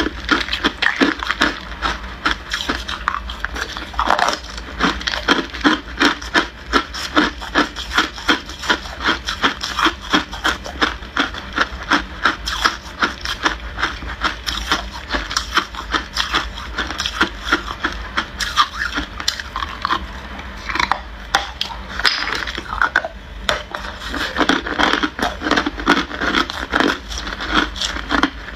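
Hard clear ice being bitten and chewed: a dense run of sharp crunches and cracks, several a second.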